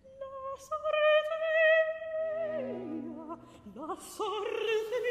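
Operatic singing in a high woman's voice. It holds a long high note, slides down about halfway through over lower sustained notes, then climbs again near the end with wide vibrato.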